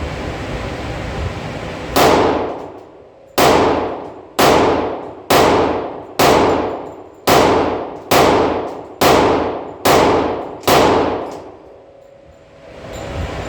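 Ten shots from a Glock 20 10mm pistol fired indoors, roughly one a second, each sharp report followed by a ringing echo that dies away. A steady background hum runs before and after the string.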